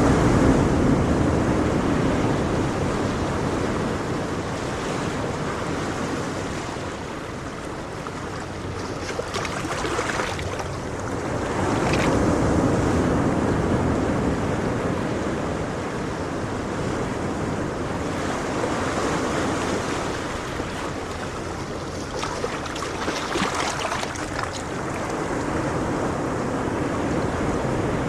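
Ocean waves breaking and washing on a shore: a continuous surf hiss that swells and ebbs every few seconds, with a few louder breaks, and some wind buffeting the microphone.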